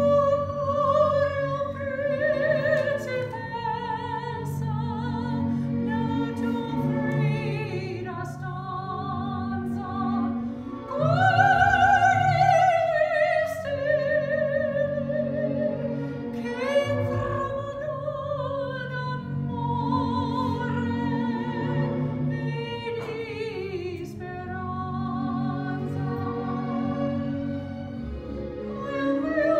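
A woman singing solo in an operatic, classical style with strong vibrato, over a sustained instrumental accompaniment. About eleven seconds in she rises into a long, loud high note.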